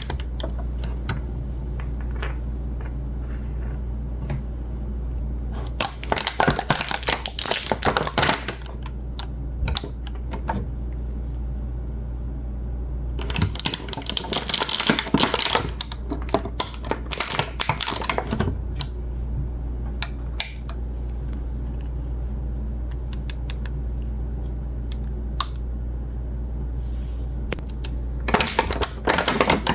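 Small hard plastic toy pieces being handled, tapped and clicked together in three spells of rapid clicking, over a steady low hum.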